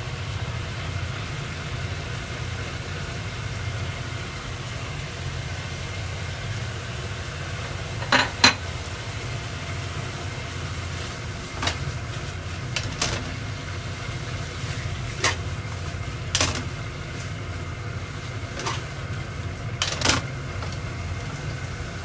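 Plastic turner knocking and scraping against a nonstick frying pan as fried tofu cubes and green onions are tossed in sauce: a handful of sharp clicks from about eight seconds in, the loudest a quick pair at the start. Under it, light sizzling and a steady low hum.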